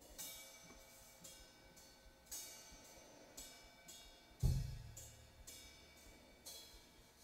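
A quiet passage of a recorded song played over PS Audio Aspen FR30 floor-standing loudspeakers. A cymbal stroke comes about once a second, and a single deep low hit lands about four and a half seconds in.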